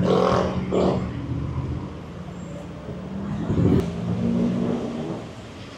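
Street traffic: motor vehicle engines running close by with a steady hum, loudest in the first second and again briefly in the middle, then easing off.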